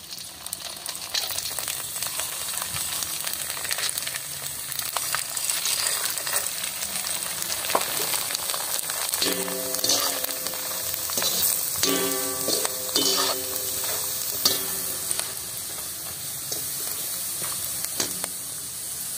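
Papads frying in hot ghee in a kadhai: a steady sizzle with occasional clinks.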